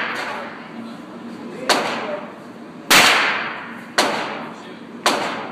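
Four handgun shots about a second apart, each trailing off in echo; the second is the loudest.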